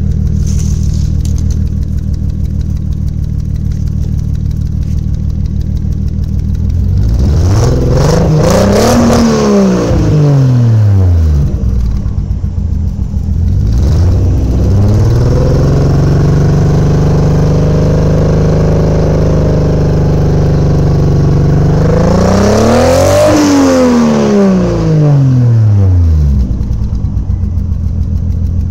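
Toyota 1JZ 2.5-litre inline-six idling unevenly and being revved: it rises and falls once, is held at a raised speed for several seconds, then blipped again before settling back to idle. The owner takes the uneven note, which he says almost sounds like a Subaru, for a misfire.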